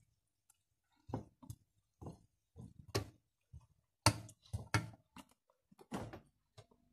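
A utensil knocking and scraping against a stainless-steel saucepan as mashed potato is worked in it: a run of irregular sharp knocks and clicks, loudest about four seconds in.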